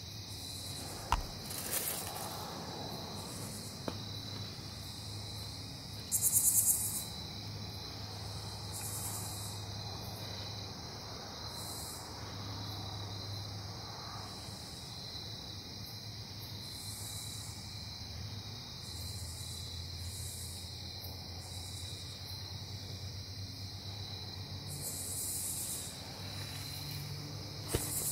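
Insect chorus in woodland: crickets trilling steadily and high-pitched, with shorter, higher insect buzzes coming and going every few seconds, the loudest about six seconds in. A single sharp click about a second in.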